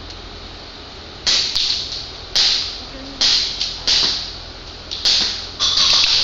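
Airsoft guns firing on semi-auto: about eight sharp shots with a short hiss after each, spaced unevenly, with several in quick succession near the end.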